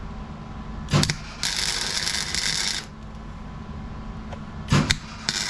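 Electric welder arcing in short crackling runs, welding the broken steel headlight bracket back together. A sharp knock comes about a second in, then a crackling run of about a second and a half. Another knock comes near the end, and a second run starts just after it.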